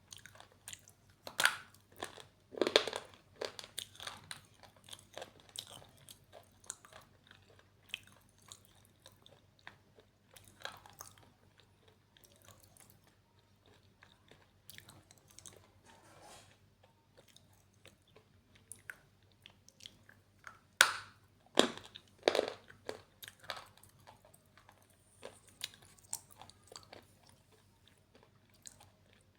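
Slate pencil being bitten and chewed close to the microphone: a few loud, sharp crunches near the start and again about two thirds of the way through, with quieter crackly chewing between.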